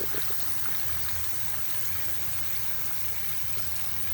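Water running steadily, as from a tap or shower, over a steady low hum.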